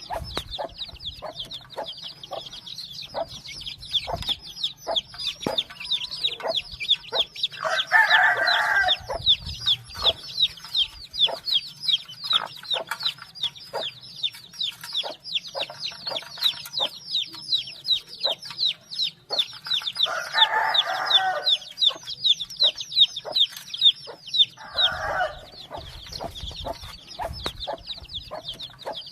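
A large brood of baby chicks peeping without pause in rapid, high chirps. Three times an adult chicken gives a louder, lower call lasting about a second.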